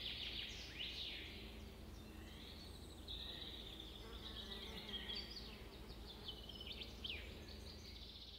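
Faint birdsong: several small birds chirping and trilling in quick, sweeping high notes over a low steady outdoor background.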